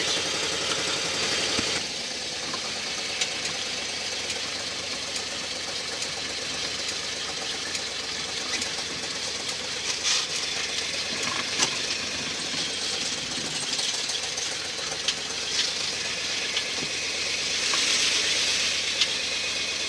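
1970 Ford Boss 302 small-block V8 in a pickup, heard from inside the cab, running steadily. It drops a little in level about two seconds in, with scattered light clicks and rattles throughout.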